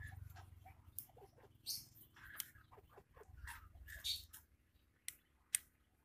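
Knife whittling a wooden slingshot handle: scattered scraping strokes and clicks of the blade on the wood, with two sharp clicks near the end. Short animal calls sound faintly in the background.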